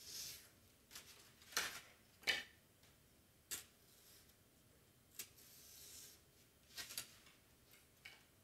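Craft knife cutting through foam board on a self-healing mat: a series of short, irregular, faint scratching strokes, the loudest about two seconds in.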